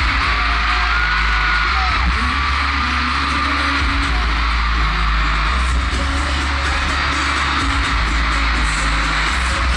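Loud pop music with a heavy, pulsing bass beat over an arena's loudspeakers, with a crowd of fans screaming and cheering over it.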